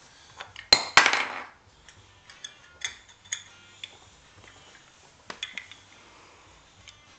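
Small hard toy pieces clicking and clattering: a sharp double pop about a second in, followed by a brief rattle, then scattered light clicks.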